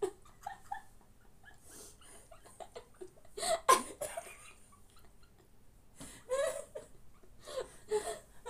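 Women laughing in short breathy bursts without words, loudest about three and a half seconds in, with more laughs near the end.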